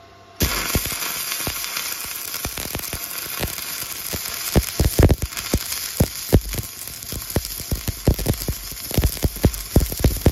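Stick-welding arc struck about half a second in, then a steady hiss with frequent sharp pops as a flux-coated electrode welds ribbed steel rebar to a steel plate; the pops grow louder from about halfway.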